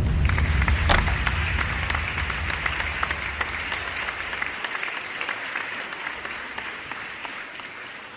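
Audience applauding, a dense patter of many hands clapping that fades away gradually. Underneath, the low end of the music dies out about halfway through.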